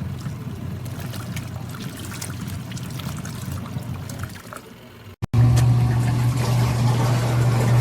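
Water trickling and splashing over a low motor hum from a portable mini washing machine. After a short break about five seconds in, it switches to a louder, steady motor hum with water churning.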